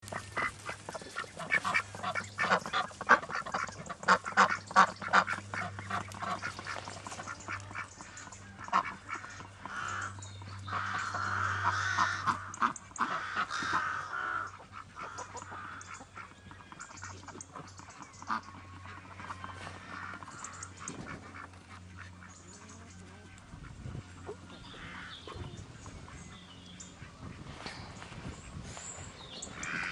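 Rouen Clair ducks quacking. A fast run of loud, repeated quacks comes in the first several seconds, then a longer call, then scattered quieter quacks.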